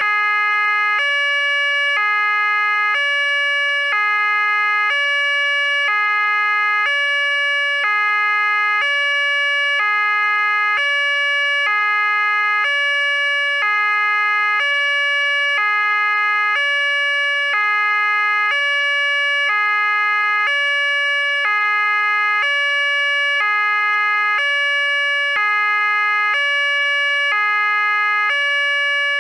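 Police siren in hi-lo two-tone mode: a lower and a higher steady pitch alternate evenly, each held about a second, with no glide between them.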